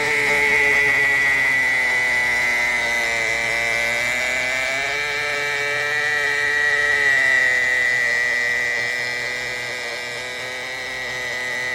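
Countertop nugget ice maker running: a steady motor whir with a constant high whine, its lower hum drifting slightly up and back down in pitch midway.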